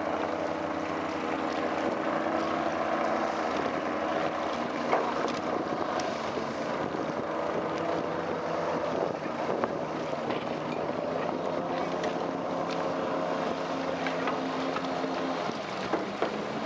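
A canopied passenger speedboat's engine runs steadily at speed as the boat passes, a continuous hum whose pitch wavers slightly over a steady hiss of water and wind.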